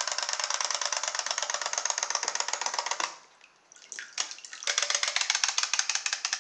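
Clockwork toy frog's wind-up spring motor running with a rapid ticking whirr as its legs paddle. It stops about three seconds in, a few single clicks follow, and it starts up again for the last couple of seconds while the frog is held out of the water.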